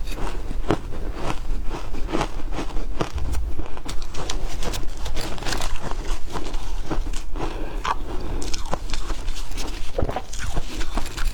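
Ice being bitten and chewed close to the microphone: a dense, irregular run of crisp crunches.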